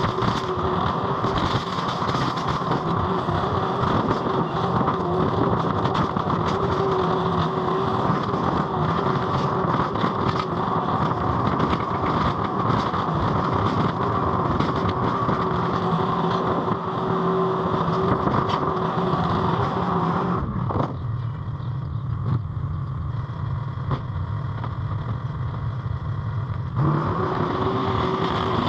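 Mini skid steer running at high throttle, a steady engine drone with a held pitch and scattered light knocks. About three-quarters of the way through the upper part of the sound drops away for about six seconds, then returns.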